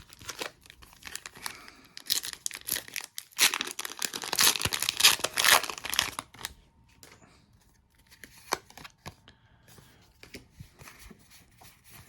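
Foil Pokémon booster pack wrapper being torn open and crinkled, the crackling loudest about halfway through. After that come sparser, softer clicks and rustles.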